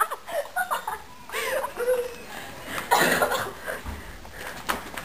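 Girls laughing and giggling.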